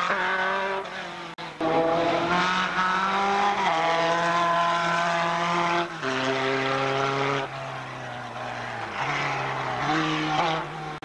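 Formula 3 racing cars' four-cylinder engines at high revs on a hillclimb, the engine note held steady and stepping in pitch at each gear change. The sound cuts abruptly from one car to the next about a second and a half in.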